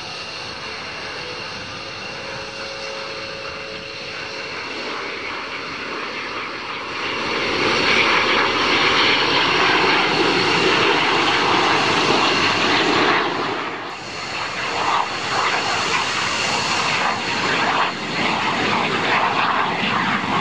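Several SOKO G-2 Galeb jet trainers flying past in formation, their Rolls-Royce Viper turbojets giving a steady rush with a high whine. The sound grows louder about seven seconds in and stays loud, with a brief dip about two-thirds through.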